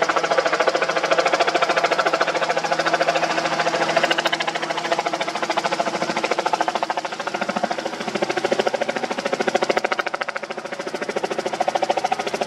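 An engine running steadily with a fast, even pulse, easing slightly about ten seconds in.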